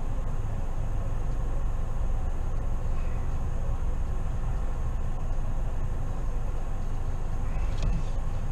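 Steady low rumble of a car driving slowly on a snowy road, engine and tyre noise heard from inside the cabin. A few faint, short high squeaks come about three seconds in and again near the end.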